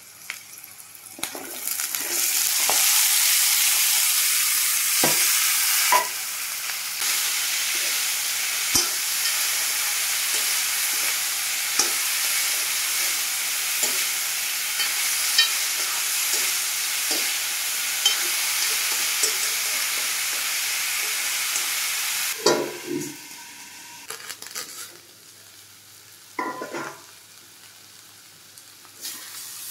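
Diced potato, banana stem, brinjal and red lentils tipped into hot oil in a steel kadai start sizzling loudly a second or two in, with a steel spoon scraping and clinking against the pan as they are stirred. About three-quarters of the way through the sizzling drops away sharply, leaving quieter scrapes and clinks.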